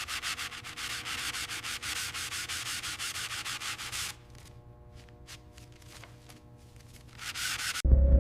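Rapid back-and-forth sanding strokes, about six a second, that stop about four seconds in. A few faint clicks and a short burst of rubbing follow, and just before the end a loud, low throbbing hum comes in.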